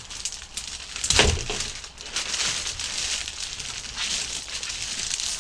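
Thin plastic bag crinkling and rustling as it is pulled off a hollow plastic jack-o'-lantern, with one louder crackle about a second in.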